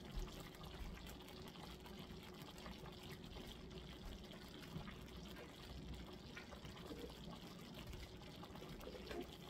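Faint running water from a kitchen tap during hand-washing, a steady, even splashing hiss.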